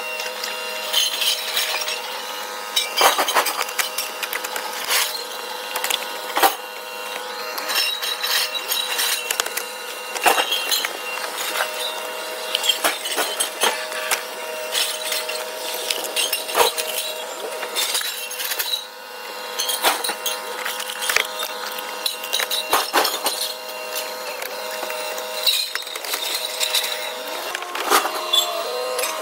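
Irregular clinks and knocks of hand tools and loose metal parts as the interior of a Tesla Model 3 is taken apart down to the floor, over a steady background hum.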